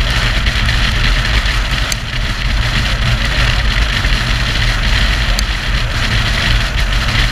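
Motorcycle cruising at a steady speed: a constant engine drone under heavy wind and road noise rushing over the microphone.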